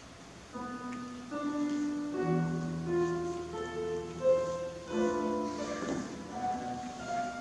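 Classical instrumental music starts about half a second in: a slow line of held notes.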